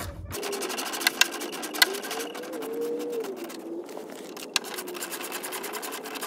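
Cordless drill turning a 3/8-inch socket to back out cover screws, its motor whine rising and falling in pitch as the trigger is worked, with a few sharp metallic clicks.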